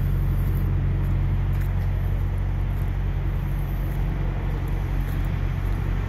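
Semi truck's diesel engine idling, a steady low rumble.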